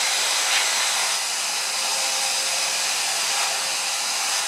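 Steady, even hiss of water running from a garden hose left on, with a faint constant hum underneath.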